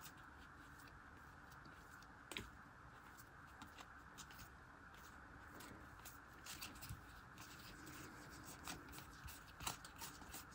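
Faint soft clicks of glossy photo cards being slid off a stack one at a time as they are counted, coming more often in the second half.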